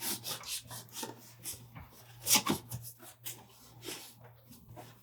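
Dull knife blade scraping and sawing through packing tape and cardboard, a run of irregular rasping strokes with a louder pair about halfway through.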